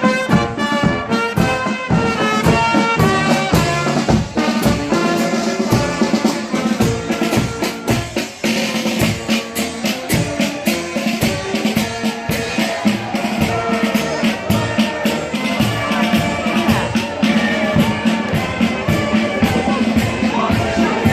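Brass band playing a melody over a steady drum beat with bass drum and snare.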